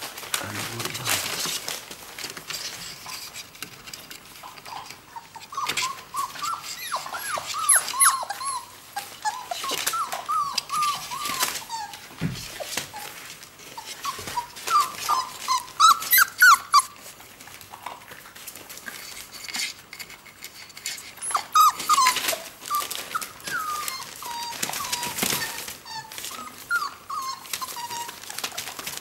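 Four-week-old whippet puppies whining and whimpering in short, high, wavering cries, in three spells with pauses between, because they are hungry. Newspaper bedding rustles under their paws throughout.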